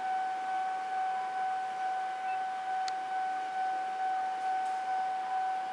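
Railway level-crossing warning alarm sounding: a steady ringing tone that pulses about twice a second.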